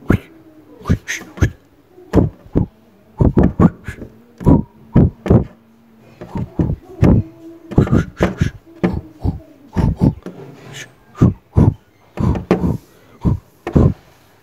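A cat's paws slapping and tapping against a mirror: an irregular run of sharp knocks and thumps, sometimes two or three in quick succession.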